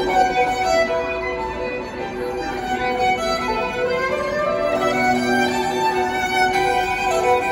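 Busker's electric violin, played through a small amplifier, bowing a melody of held notes that move in pitch.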